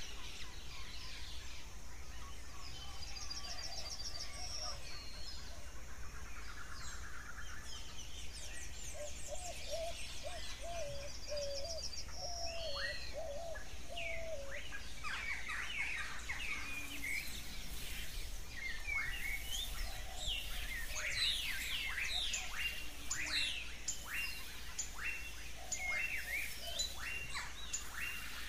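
Many birds singing in a nature ambience recording: high trills and quick chirps, with a lower wavering call about a third of the way in, and the chirping growing busier in the second half.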